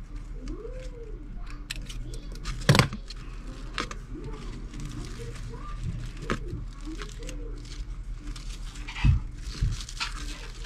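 Hands at close range snipping clear tape with scissors and pressing a ribbon bow down onto a board: crinkling and rustling with scattered sharp clicks, the loudest about three seconds in and another near the end, over a steady low hum.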